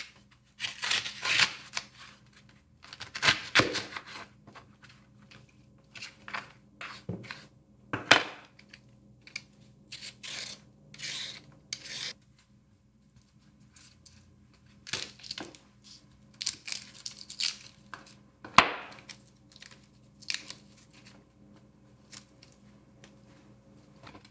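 Vegetable prep on a wooden cutting board: irregular scraping strokes of a vegetable peeler stripping celery root and carrot, and a knife slicing through carrot and leek. A few sharp knocks of the blade on the board are heard, the loudest about three-quarters of the way through.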